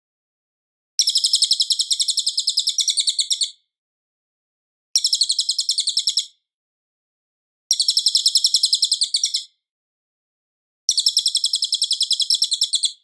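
Cililin bird singing: four bursts of a rapid, high trill of quickly repeated notes, each burst lasting about one and a half to two and a half seconds, with short silent pauses between them.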